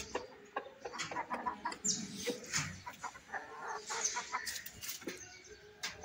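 Chickens clucking in short, repeated calls, mixed with sharp little taps as an Aseel rooster pecks at the dirt.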